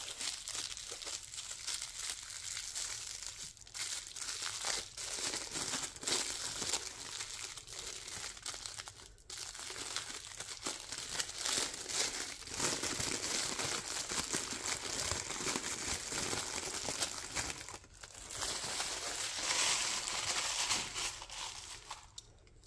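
Plastic packaging crinkling and tearing as a die-cast model part is unwrapped by hand: continuous crackling broken by a few brief pauses, stopping just before the end.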